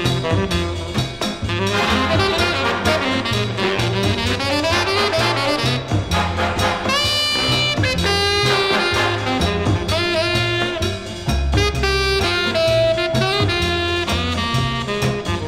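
Big band swing recording: horns and saxophones playing over bass and drum kit, with long held horn chords about halfway through.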